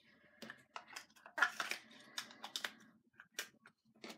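Packaging and small items being handled, a run of quick crinkles, rustles and clicks, busiest in the middle second or two.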